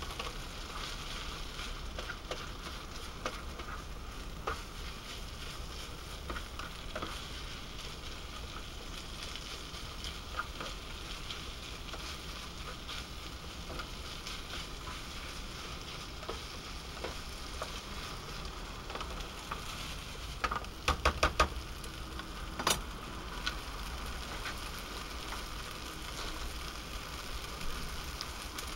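Rice and sliced kabanos sausage sizzling steadily in a frying pan, with light scrapes of stirring. About 21 seconds in there is a quick run of sharp clicks, then one more a second later.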